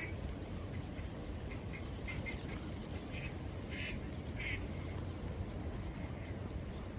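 A few short, harsh bird calls, clustered around the middle, over a steady low rumble.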